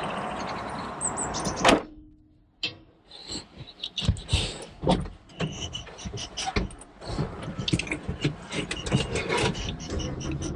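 A car door slams shut a little under two seconds in, cutting off the steady outdoor noise. After a brief hush come irregular knocks, clicks and rustling from inside the car as things are handled and settled.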